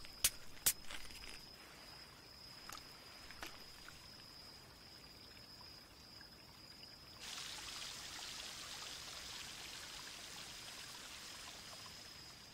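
Night ambience with a cricket's steady high trill. Two sharp clicks come in the first second, and a couple of fainter ones a few seconds later, from plastic soda bottles being handled. From about seven seconds in, a soft, even hiss of fizzing carbonation comes in and lasts almost to the end.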